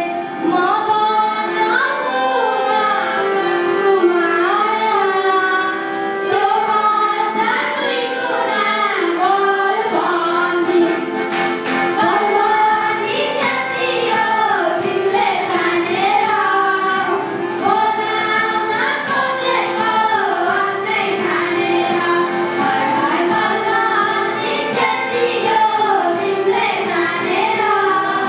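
Children's voices singing a Nepali Lok Dohori folk song, a melodic sung line continuing without a break over steady held instrumental tones.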